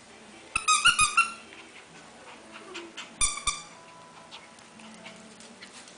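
Squeaky dog toy being bitten and tugged by a Maltese puppy, giving a quick run of high-pitched squeaks about half a second in and a shorter run around three seconds in, with a few soft knocks.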